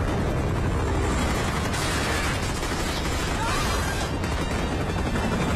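Dense action-film sound mix: the steady heavy rumble of a helicopter with gunfire in it.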